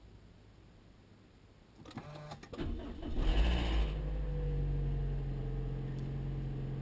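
Toyota Noah/Voxy 70-series engine being started. About two seconds in, the starter cranks with a quick clatter. The engine catches about a second later with a short, harsh, hissy burst, then settles to a steady idle. This start-up is where the owner reports an abnormal noise on starting.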